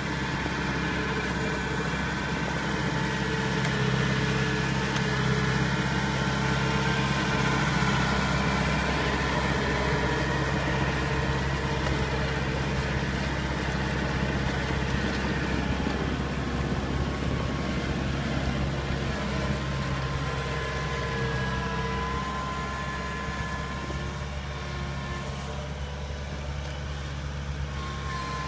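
Kubota DC70 combine harvester's diesel engine running steadily as the tracked machine drives through deep paddy mud. A steady drone with a faint whine above it, easing slightly near the end.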